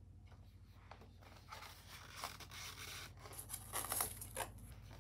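Faint scraping and rustling of cardboard and paper packaging being handled, a cardboard insert sliding out of the box, starting about a second and a half in.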